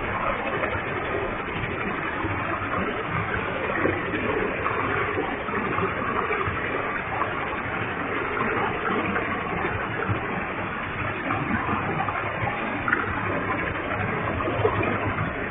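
Waterfall with a heavy flow of water, falling and splashing in a steady, even rush.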